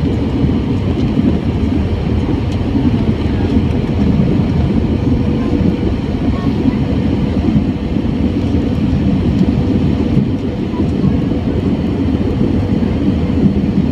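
Steady cabin noise of an Airbus A320 in flight, heard inside the cabin at a window seat over the wing: engine and rushing-air noise with a faint steady tone running through it.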